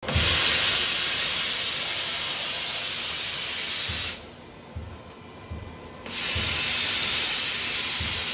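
Roders RXU1001DSHZ2 5-axis machining center giving off a loud, steady hiss while its trunnion table swings. The hiss cuts off sharply about four seconds in and starts again two seconds later, with faint low thuds beneath.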